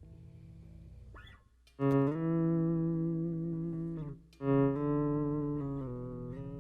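Electric bass guitar playing slow sustained chords: after a quiet start, a long ringing chord enters about two seconds in, and after a short break a second long chord follows, bending slightly in pitch.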